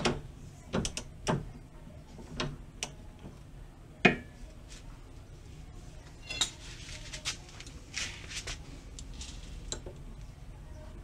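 Hand tools clinking and knocking on the nut of a BMW E36 stabilizer link as it is worked loose or tightened: about a dozen irregular metallic clicks and clanks, the loudest about four seconds in.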